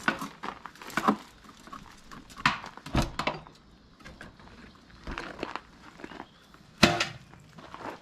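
Scattered knocks and clatters of tools and material being handled, with shuffling footsteps: about five sharp knocks spread out, the loudest near the end, and no saw running.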